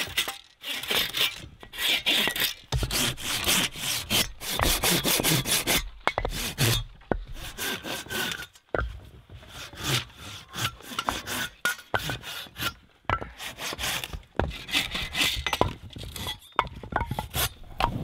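Hand saw cutting through firewood on a sawhorse: fast back-and-forth rasping strokes in runs, with several brief pauses.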